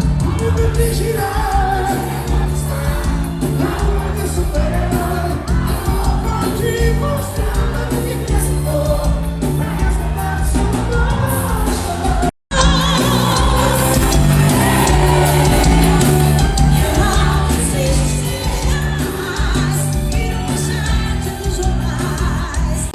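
Loud amplified forró music with a lead singer and a steady low beat. It drops out for an instant about twelve seconds in, then carries on.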